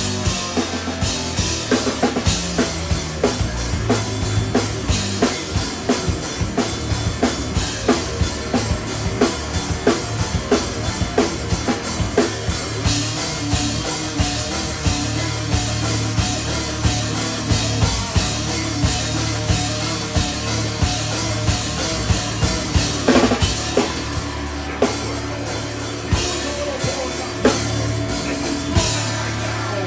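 Live instrumental rock from a three-piece band: a drum kit with a steady bass-drum and snare beat under bass and electric guitar, recorded in the room.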